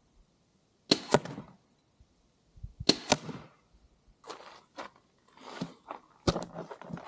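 Crossbow bolts being pulled by hand out of the target: several sharp scraping pulls, about one second in, three seconds in and near the end, with fainter rustling between.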